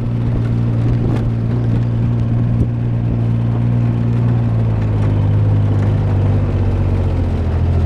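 Tractor engine running steadily, its note shifting slightly lower about five seconds in.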